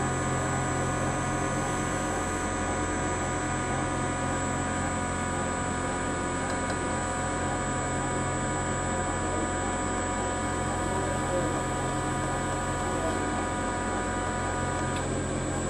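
Spectral MM milling machine running steadily while its 10 mm three-flute end mill cuts a slot through copper bar: a constant machine hum made of many fixed tones. A few of the higher tones drop out near the end.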